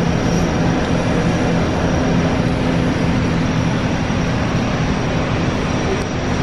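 Airport apron passenger bus under way, heard from inside the cabin: a steady engine drone and rumble, with a faint steady high whine above it.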